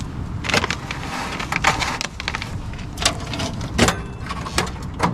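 Duraflame compressed firewood logs being split in half and handled at a wood-burning stove: a series of sharp knocks, cracks and scrapes about a second apart, over a low steady hum.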